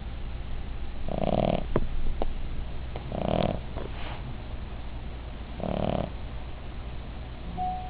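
Cavalier King Charles Spaniel snoring in her sleep: three snores, one every two to two and a half seconds, with a couple of small clicks after the first and a brief high whistle near the end.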